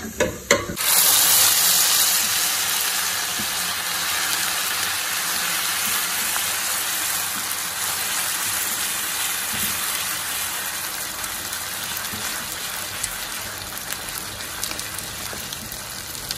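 Hot desi ghee with browned ginger sizzling as the mustard-greens saag goes into the pan. A loud hiss starts suddenly about a second in and slowly dies down.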